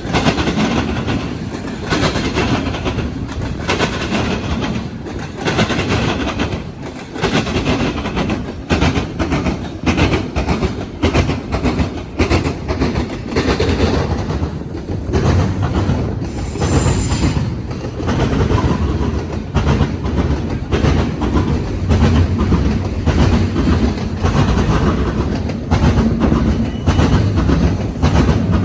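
Freight train wheels pounding over railroad crossing diamonds in a steady run of clacks and bangs. A brief high-pitched wheel squeal comes a little past the middle.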